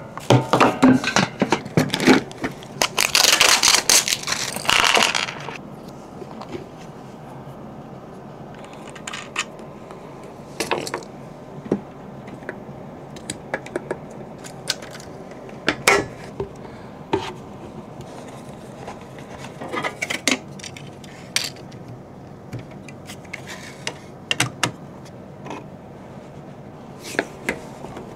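Plastic wrapping crinkling and rustling for the first five seconds or so, then scattered clicks, knocks and clinks as the plastic parts of a dust collection kit (cyclone separator, clear bucket, clamp ring, vacuum hoses) are handled and fitted together, over a steady faint hiss.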